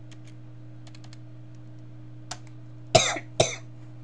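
A person coughs twice, two short coughs about half a second apart near the end, after a few light taps on a computer keyboard.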